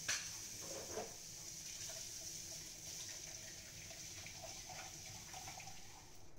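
A steel spatula knocks against a ceramic bowl just after the start and again, more softly, about a second in, over a steady high hiss.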